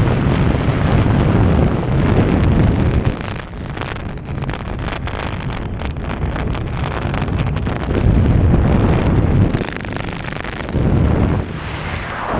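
Wind buffeting the microphone aboard a speeding jet boat, over the rush of water and the boat's engine. The gusts swell and ease every few seconds over a steady hiss.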